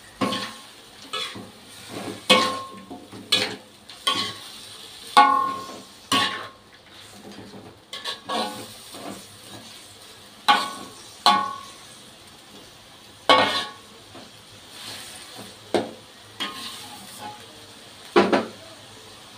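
Metal spatula scraping and clanking against a wok as shellfish and vegetables are stir-fried, in irregular strokes about one every second or two, over a steady sizzle.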